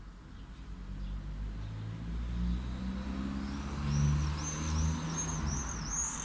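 A car passing on a road, its low engine hum swelling and fading, while a bird calls a rapid series of short arched high notes, about three a second, through the last three seconds.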